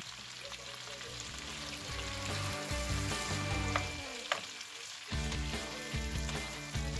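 Sliced leeks and carrots sizzling in hot oil and butter in a pot as they are stirred with a wooden spoon.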